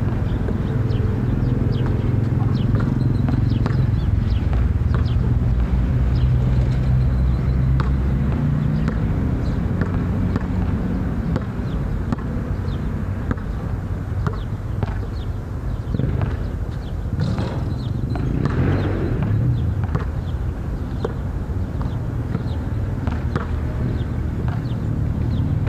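A basketball bouncing and dribbled on an outdoor court: scattered, irregular thuds and slaps over a steady low rumble.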